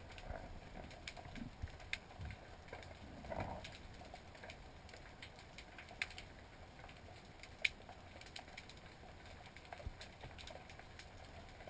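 Faint underwater ambience: a low steady rumble with scattered, irregular sharp clicks and crackles, the sharpest about six and eight seconds in.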